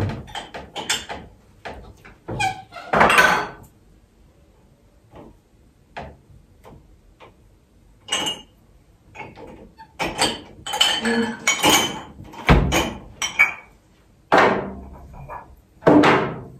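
Dishes being unloaded from a dishwasher rack and put away in kitchen cupboards: a string of separate clinks, knocks and clatters, some ringing briefly, with short quiet gaps between them.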